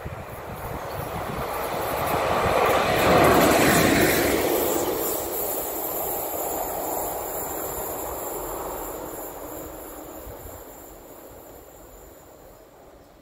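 Red electric locomotive passing close by with no train behind it, its wheels running on the rails. The sound builds to a peak about three seconds in, then fades away over the next several seconds.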